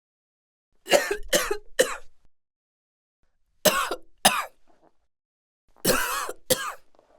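A person coughing in three short bouts (three harsh coughs, then two, then two) with dead silence between the bouts.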